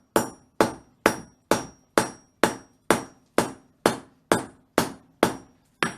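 Blacksmith's hammer striking hot steel in quick, heavy blows, about two a second, about a dozen in all, several with a short high metallic ring. The blows set a forge weld in the heated steel.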